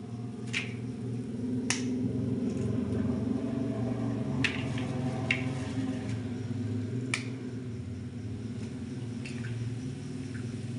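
Eggs being cracked open against a metal spoon over a bowl: about seven sharp clicks and cracks a second or so apart, over a steady low hum.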